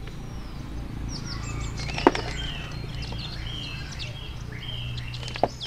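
Small birds chirping and calling on and off, with two sharp knocks, one about two seconds in and one near the end.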